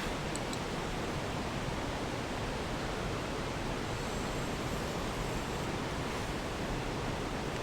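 Steady rushing of a mountain stream flowing over rocks, an even wash of water noise that does not change.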